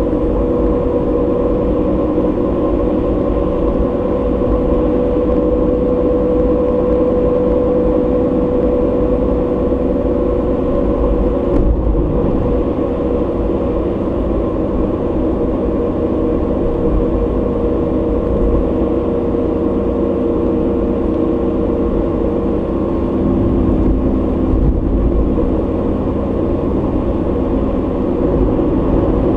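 A car driving, heard from inside the cabin: a steady drone of engine and road noise, with a hum that shifts slightly in pitch over a low rumble.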